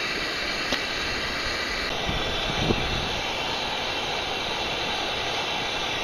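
Steady rush of flowing stream water, with a couple of small knocks, one under a second in and one near three seconds.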